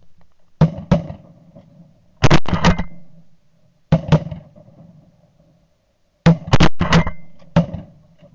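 Shotgun fire from several hunters: sharp blasts coming close together in four volleys, about a dozen shots in all, each ringing off briefly.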